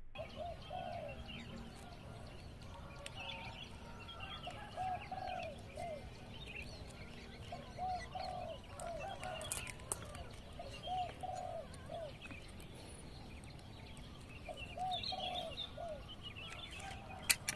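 Dove cooing in repeated phrases of three or four arched, low notes, with small birds chirping higher and fainter behind it. A few sharp clicks come near the end.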